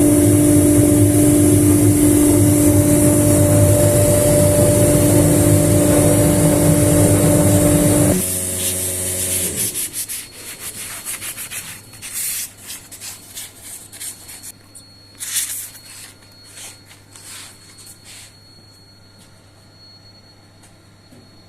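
3-axis CNC router spindle at 24,000 rpm with a GravMan XSF807 8 mm cutter milling a curved furniture facade: a loud steady cutting noise with a steady tone. About eight seconds in the cutting stops abruptly and the spindle tone steps down as it winds down, leaving a low hum and scattered faint knocks.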